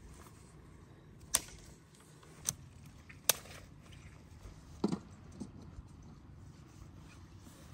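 Dry sticks being handled and laid for a fire: four sharp cracks about a second apart, then a fainter one, over a low steady outdoor background.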